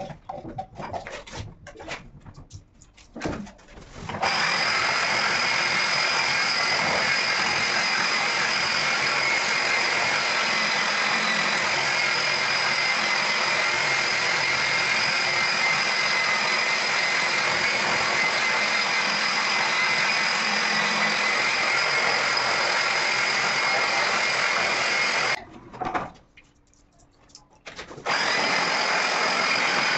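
Handheld wet polisher grinding a terrazzo surface. After a few seconds of uneven knocks, the motor runs steadily with a high whine. It stops for a couple of seconds near the end, then runs again.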